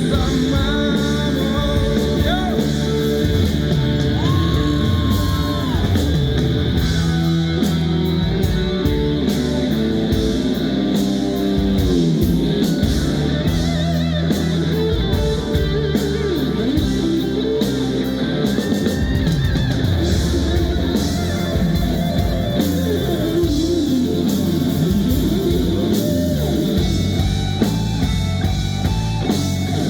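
Live rock band playing a mostly instrumental passage: drum kit, bass and lead electric guitar, with a sung line ending just at the start.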